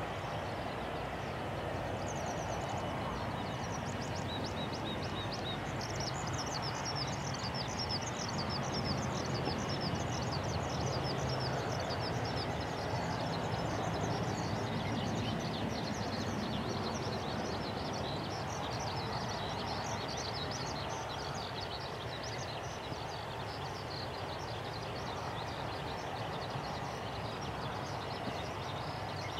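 Airbus A330-343's Rolls-Royce Trent 700 jet engines at low taxi thrust as it rolls slowly after landing, a steady rumble that swells a little about a third of the way through. Many small birds chirp rapidly over it from about two seconds in.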